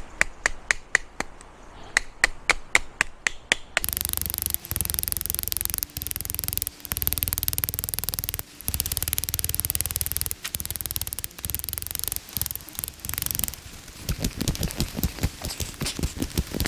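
Folding knife working a wooden stake. First comes a run of sharp, evenly spaced chops at about four a second. Then several seconds of steady shaving and scraping along the wood, with short breaks. Near the end, quicker knocks at about five a second.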